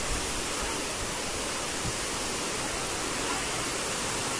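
Fast, turbulent floodwater rushing and churning past bridge piers: a steady, even rush of water.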